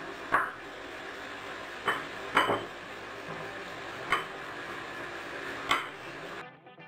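A spatula knocking and scraping against glass bowls while ice cream is scooped out onto fruit: about five sharp clinks spread unevenly through the stretch, over a faint steady background.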